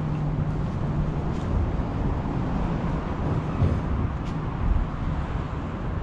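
Steady rumble of road traffic crossing the bridge deck overhead, with a few brief louder swells.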